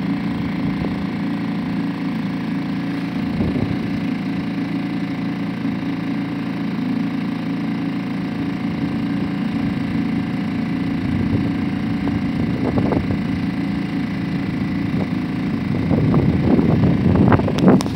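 Suzuki DF 2.5 single-cylinder four-stroke outboard motor running at a steady speed, pushing an inflatable canoe along. Near the end a louder stretch of crackling noise with a few sharp knocks comes over the engine.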